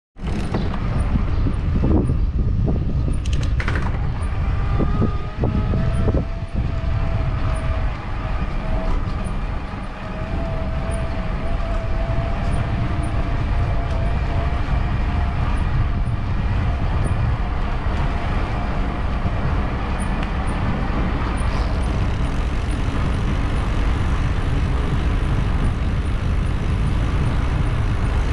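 Steady wind rumble on the microphone of a camera riding through a town, with road noise. There are a few short knocks in the first several seconds and a faint whine that rises slightly in pitch.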